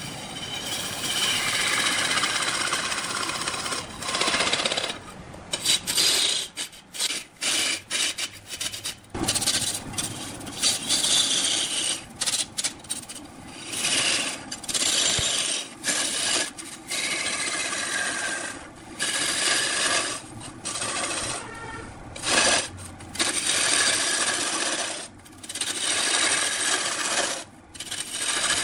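A long-handled turning tool cuts into a large red-wood log spinning on a big wood lathe, making a scraping, tearing noise as shavings peel off. It runs unbroken for about the first four seconds, then comes in repeated short cuts broken by brief gaps.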